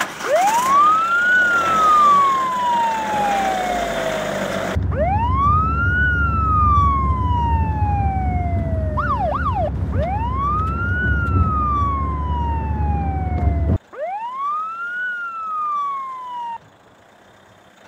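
Police car siren wailing in slow cycles, each rising quickly and then sliding down for about five seconds, four times over. A low steady rumble runs under the middle wails and stops abruptly near the end, and the sound cuts sharply between takes.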